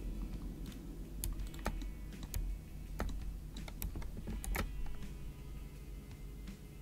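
Computer keyboard key presses: a handful of separate sharp clicks spread over several seconds, among them the Ctrl+B shortcut for a bevel.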